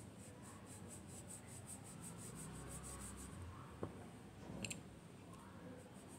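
Faint, quick strokes of a small watercolour mop brush on heavy cartridge paper, about five or six a second, laying down a wash. The strokes stop a little past halfway, with a sharp click and a light tap just after.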